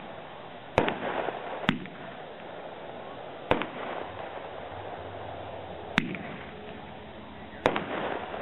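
Dominator Mammoth Strobe Red firework going off: five sharp reports spaced irregularly, about one to two and a half seconds apart.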